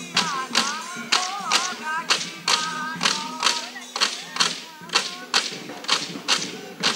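Bihu music: split-bamboo toka clappers struck in a steady beat, about two sharp clacks a second, under voices singing a wavering Bihu melody.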